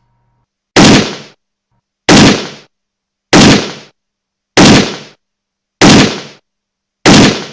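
Six loud gunshots, evenly spaced about a second and a quarter apart, each ringing out for about half a second.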